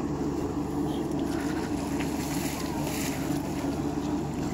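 Personal watercraft engine idling steadily, a low even hum that does not rise or fall.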